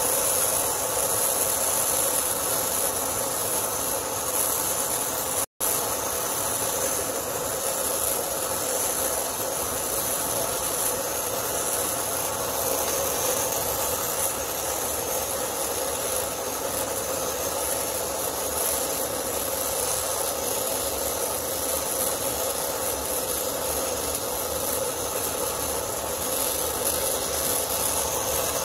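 Brazing torch flame hissing steadily while a pipe joint is heated and brazed with filler rod. The sound cuts out completely for a split second about five and a half seconds in.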